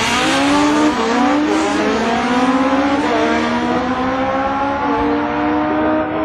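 Two Legend race cars' Yamaha four-cylinder motorcycle engines accelerating hard side by side, running up through the gears. The pitch climbs steadily and drops back at each gear change.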